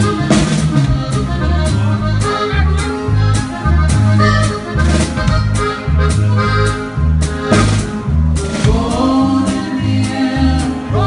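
Live Latin band music: accordion over a steady beat on drum kit and timbales, with repeating low bass notes.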